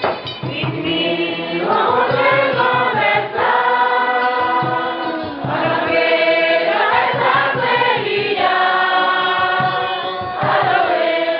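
A congregation singing a hymn together, in long held notes phrase by phrase.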